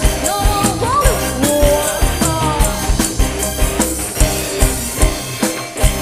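Live dangdut band playing: electric bass and guitar over a steady drum beat. A lead melody with sliding, bending notes stands out in the first couple of seconds.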